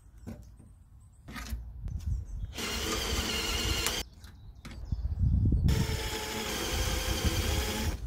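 Cordless drill running in two bursts of a second or two each, a steady motor whine, as the bit bores into a thin painted sheet-metal panel.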